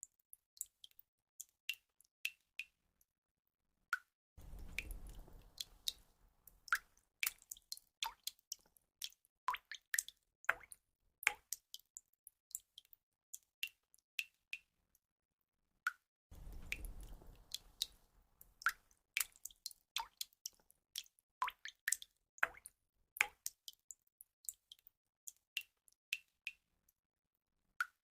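Water drops falling and plinking, a run of short, sharp drips at varying pitches and uneven spacing. Twice, about four seconds in and again past the middle, a low, noisy wash swells in under the drips and fades. The sequence repeats about every twelve seconds, as a looped track.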